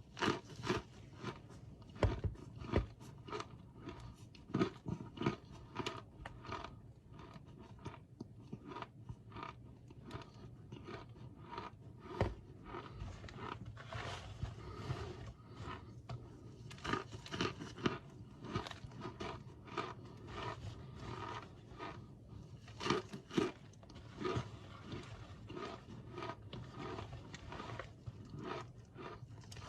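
Crunchy food being bitten and chewed: a long run of irregular crunches, several a second.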